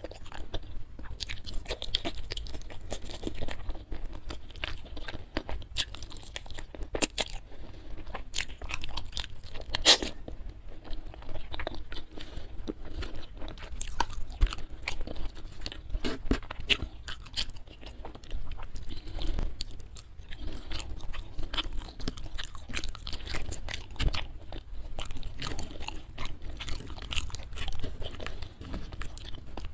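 Close-miked chewing and crunching of spiced chicken feet eaten by hand: a steady, irregular run of sharp crunches and mouth clicks.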